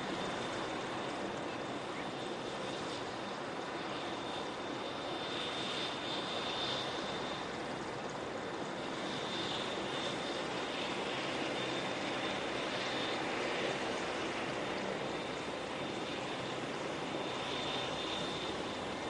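MCH-101 (AW101) helicopter's turbine engines and rotor running steadily, with a thin, steady high turbine whine over the rotor and engine noise.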